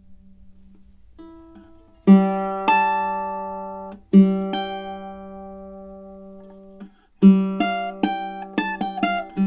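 Tenor ukulele with sabicu back and sides and a redwood top being played: after a faint note fading out, two strummed chords about two seconds apart are each left to ring and die away slowly, and near the end a third chord leads into a quick run of plucked notes.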